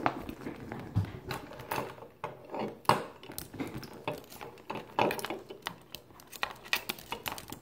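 A glossy plastic bag rustling and crinkling, with irregular small clicks and knocks, as clothes are pushed into it by hand.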